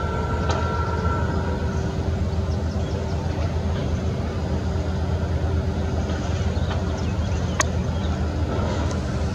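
Steady low background rumble of distant vehicles, with a faint steady hum and one sharp click about seven and a half seconds in.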